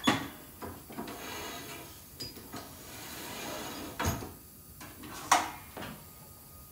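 Vertical wall-mounted mat cutter and blue mat board being worked: sharp knocks and clatter, the loudest at the start and a little over five seconds in, with a rasping slide of a few seconds in between.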